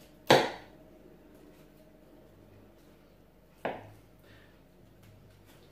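Two sharp knocks of a knife and raw chicken against a plastic chopping board while the wishbone is being cut out. The first, about a third of a second in, is the louder; the second comes about three seconds later.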